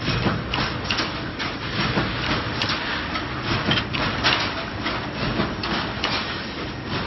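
Automatic reinforcing mesh welding machine running: a dense, irregular clatter of metal knocks over a continuous mechanical noise.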